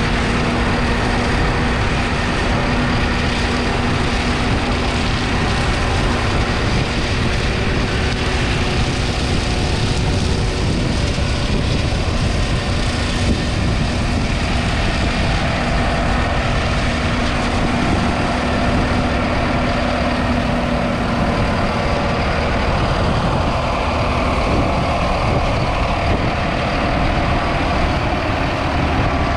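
Tractor diesel engine running steadily at close range, with a steady whine that dies away about two-thirds of the way through.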